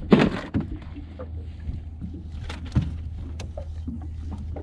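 Handling noise on the deck of a small fishing boat: a short loud scuff right at the start, then a few sharp knocks about two and a half to three and a half seconds in, over a steady low rumble of wind.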